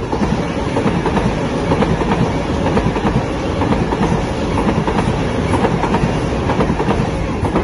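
Sydney Trains Waratah electric train passing close by, a loud steady rumble with a dense clatter of wheels over the rails.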